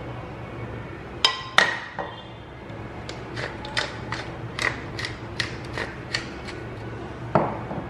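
Hand pepper grinder grinding black pepper: sharp dry clicks, two loud ones a little over a second in, then a run of about three a second through the middle and one more near the end.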